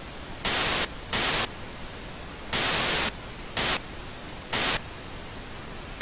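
Television static: a steady hiss broken by five short, louder bursts of static in the first five seconds.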